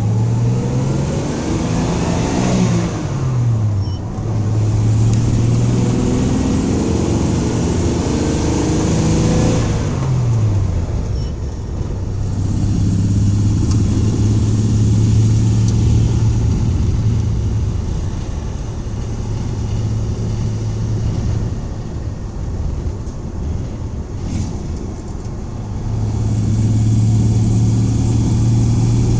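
1984 Dodge van's engine pulling hard at wide-open throttle. Its pitch climbs and drops back sharply twice, then it settles into a steady drone. The owner is listening for a suspected misfire under full throttle.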